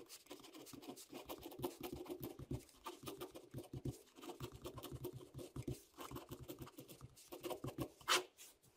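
Ballpoint pen scratching on squared paper as capital letters are written: a quick run of short, uneven pen strokes, with one louder stroke near the end.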